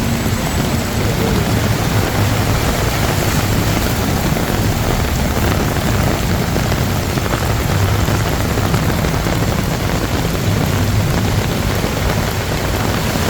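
Heavy monsoon downpour, a steady loud hiss of rain on the street and floodwater, with a low rumble of vehicle engines wavering beneath it.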